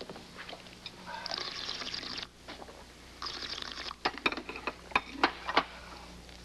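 Handling sounds at a breakfast table: two spells of rustling, then a quick run of sharp clicks and knocks from about four seconds in, the loudest of them.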